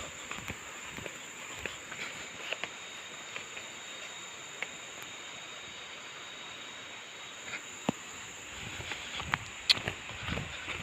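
Insects droning steadily at a high pitch, with scattered light clicks and footsteps that grow more frequent near the end.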